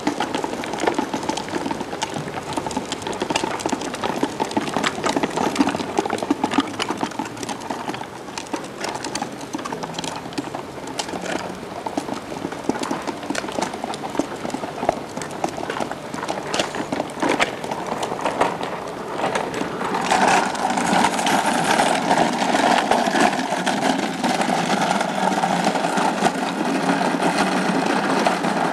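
Small plastic tricycle wheels rattling and clicking as they roll over block paving. About twenty seconds in, this gives way to a louder, steadier rolling rumble of a child's go-kart's wheels on the paving.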